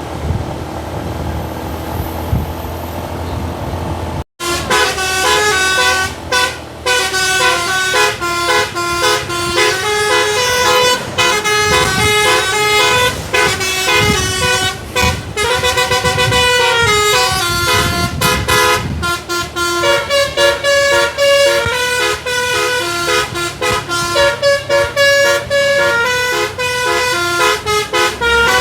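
A low vehicle rumble, then after a sudden cut a bus's telolet basuri musical air horn plays a fast tune. Several horn tones sound at once and step from note to note without stopping.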